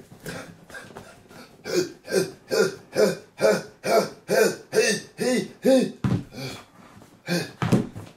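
A man's voice makes a regular run of short wordless vocal sounds, about two a second, each rising and falling in pitch. It starts about two seconds in and stops shortly after the middle, with a few more bursts near the end.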